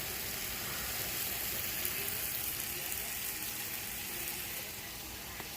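Ground beef frying in a pan with a steady sizzle.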